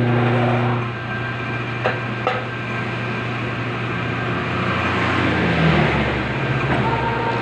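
Metal lathe running with a flywheel clamped in its chuck, its motor giving a steady low hum, with a few sharp clicks in the first couple of seconds and a broad noise that swells from about five seconds in.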